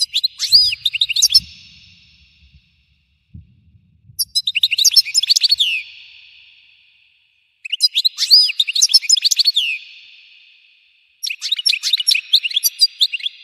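European goldfinch singing: four phrases of rapid twittering trills with quick up-and-down slides, each about a second and a half long, a couple of seconds apart.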